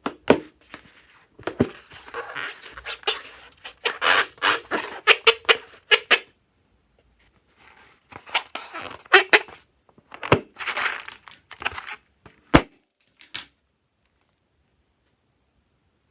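Slime-making handling noises: runs of sticky crackling and squelching with many sharp clicks, in two spells with a few louder snaps.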